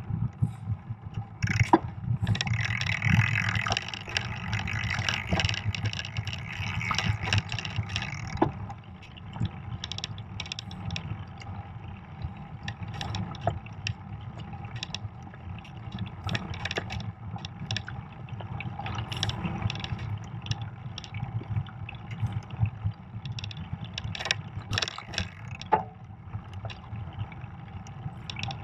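Fat bike riding on a packed snow trail, heard from a camera mounted on the bike: a steady low rolling rumble from the fat tyres on snow, with many small knocks and rattles over bumps. A louder hissing stretch runs from about two to eight seconds in.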